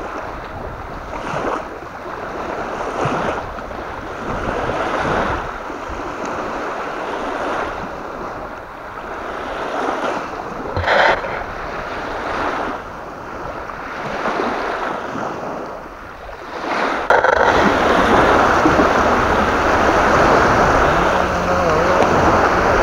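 Strong gusty wind on the microphone with waves lapping at the shore, rising and falling in gusts, with a short sharp click near the middle. About three-quarters of the way through it jumps abruptly to a louder, steadier rush.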